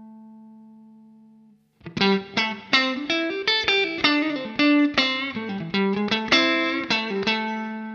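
Electric guitar played through an optical compressor pedal. A held chord rings out and fades away, then a quick run of single picked notes follows, and the last note is left ringing.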